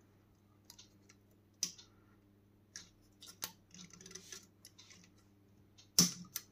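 Plastic cable ties being cut with a small hand cutter: scattered small clicks and scrapes, and a sharp snap about six seconds in as a tie gives way.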